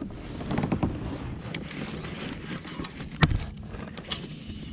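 Baitcasting reel being cranked on a chatterbait retrieve, with rustling and scattered clicks of tackle handling on a plastic kayak. There is one sharp knock about three seconds in.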